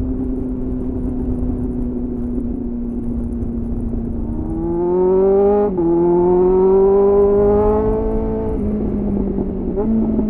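2001 Suzuki GSF 600 Bandit's inline-four running through an aftermarket SC-Project CR-T-style exhaust with a homemade dB-killer, heard onboard with wind rush. The engine holds a steady note for a few seconds, then accelerates with rising revs, drops sharply at an upshift a little before halfway, climbs again, eases off near the end, and briefly revs up and falls away.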